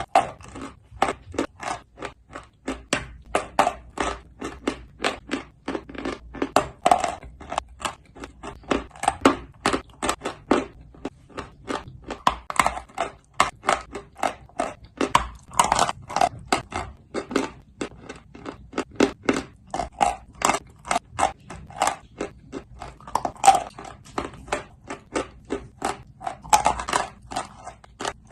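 A person chewing dry, hard clay chunks, a steady run of sharp crisp crunches, a few each second.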